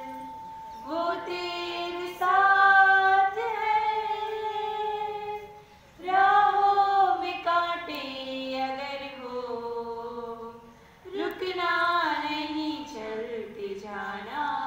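Two women singing a slow song together, in long held notes, with short breaks between phrases about six and eleven seconds in.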